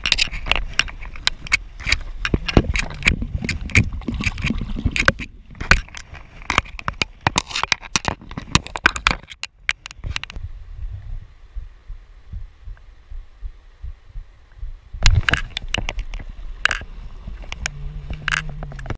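Handling noise on a body-worn camera: a jacket and hands rubbing and knocking against it in a quick run of sharp clicks and bumps, easing to a low rumble about ten seconds in, then a few louder knocks.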